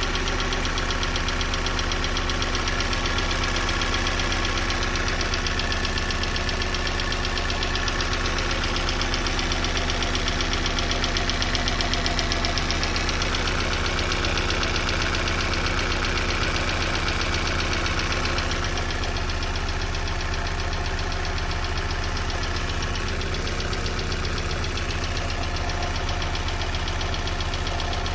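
Opel Z16XEP 1.6-litre four-cylinder petrol engine idling cold with a steady knock, the knock that shows while the engine is cold. It gets slightly quieter about two-thirds of the way in.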